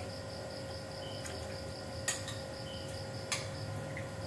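Cricket chirping steadily in a fast, even pulse, with a couple of faint sharp clicks.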